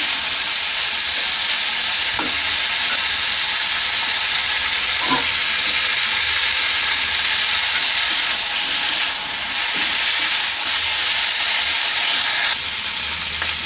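Chicken pieces sizzling steadily as they fry in hot mustard oil in a kadai, browning, with a few brief scrapes and taps of a metal spatula stirring them.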